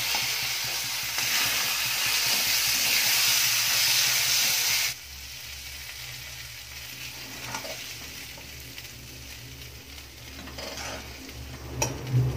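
Bharta sizzling in a kadai while a ladle stirs and mashes it. The sizzle cuts off suddenly about five seconds in, leaving a few light scrapes and knocks of the ladle against the pan as the bharta is scooped out.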